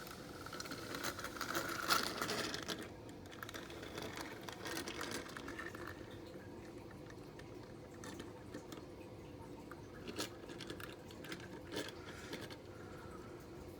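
Plastic parts of a toy airplane playset being handled, with scattered light clicks and rattles; the loudest click comes about 2 seconds in.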